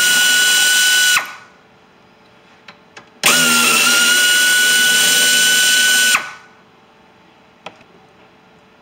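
Power drill/driver run in two steady bursts with a high motor whine, spinning out the 10 mm bolts on a bracket. The first burst stops about a second in; the second runs for about three seconds. A few faint clicks fall between and after them.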